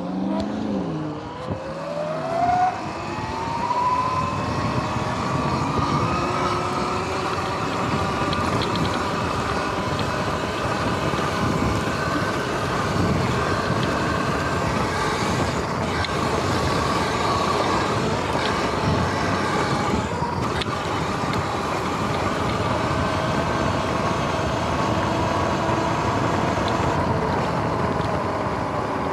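Sur-Ron X electric dirt bike's motor whining as it accelerates, the pitch climbing steeply over the first few seconds, then holding a steady, slightly wavering whine at cruising speed. A rushing noise of wind and tyres runs beneath it.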